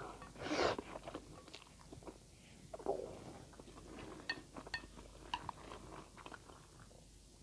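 Instant noodles slurped into the mouth, with one loud slurp about half a second in, followed by wet chewing and small clicking mouth sounds.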